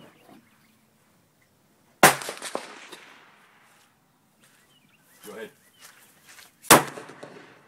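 37 mm launcher firing a handloaded bird-banger noise round: two sharp bangs about four and a half seconds apart, each echoing out for about a second.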